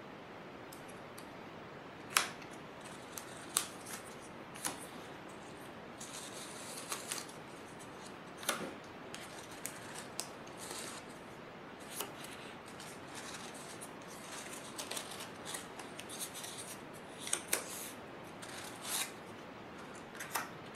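Cut-out construction-paper leaf shapes being handled and laid down on watercolor paper: light paper rustles with about a dozen scattered soft crisp taps and crinkles.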